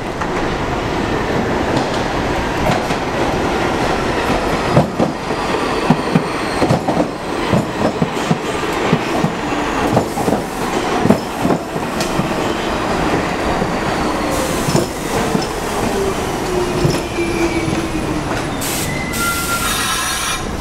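New York City subway train running into the station and slowing: wheels clattering over rail joints, then a motor whine that falls in pitch as it slows, with short high brake squeals near the end.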